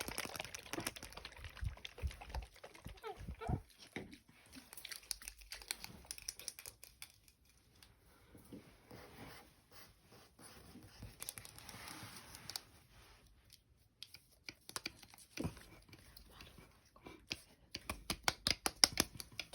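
Close-microphone ASMR handling sounds: irregular clicks, crinkles and rustles, sparser in the middle and denser near the end.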